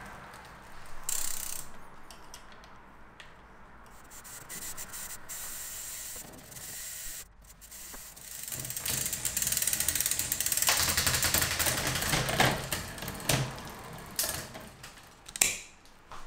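Bicycle drivetrain being turned by hand: the chain runs over the 10-speed cassette and through the Shimano Deore rear derailleur while the freehub pawls tick rapidly, loudest for several seconds in the middle. A few shorter mechanical rattles come before it, and there is a single sharp click near the end.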